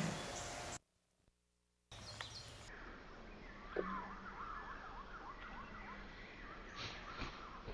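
Outdoor background noise with a bird calling a quick run of repeated whistled slurs, broken by about a second of dead silence where the recording cuts.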